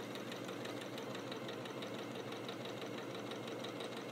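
Janome Skyline 6 sewing machine stitching a straight seam at a steady speed, its needle mechanism making a fast, even ticking.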